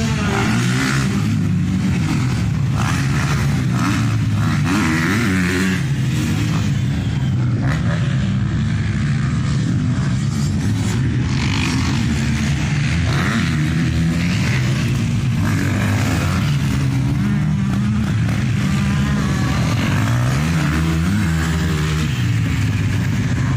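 Motocross dirt-bike engines running on the track, their pitch rising and falling several times as they are revved and let off.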